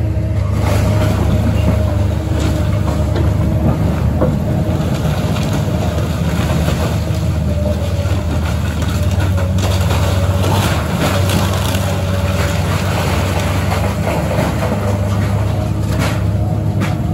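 Komatsu hydraulic excavator demolishing a building: the diesel engine runs steadily with a constant whine, and breaking debris gives irregular cracks and knocks.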